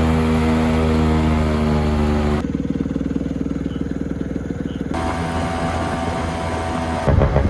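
Honda Gyro X's 50cc two-stroke engine running: a steady tone at first, switching abruptly about two seconds in to a low, uneven putter, picking up again about halfway and getting louder near the end.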